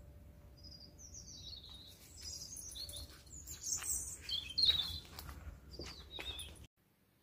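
Small birds chirping and singing in the trees: a busy run of quick high chirps and short falling whistles, which cuts off abruptly near the end.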